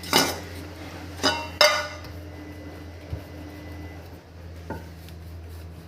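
Kitchen clatter: three sharp knocks in the first two seconds, the last two ringing briefly like dishes or utensils struck on a counter, then a couple of lighter taps. A steady low hum runs underneath.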